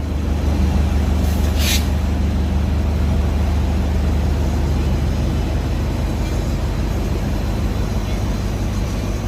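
Diesel engine of a DEMU passenger train running with a steady low rumble. A short hiss of released air, like an air-brake release, comes about one and a half seconds in.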